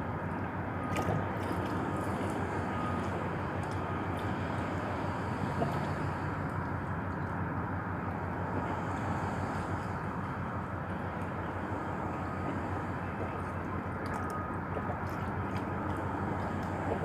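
Steady outdoor background noise, an even low rumble with no single clear source, with a few faint clicks now and then.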